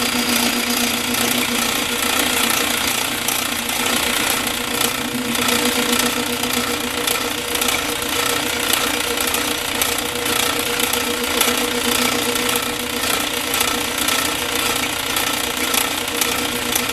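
A metalworking machine tool running steadily under load, with a constant hum and a dense rattling cutting noise.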